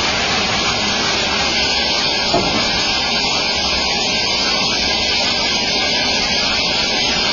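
Band sawmill cutting through a squared log: the band-saw blade and machine running steadily as the cut goes on, an even noise with no change in level.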